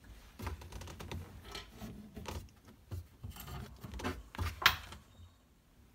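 Hand-handling noise inside a bathroom vanity cabinet as the under-sink shut-off valves are turned off: irregular soft rubbing and small knocks, with one sharper click about four and a half seconds in.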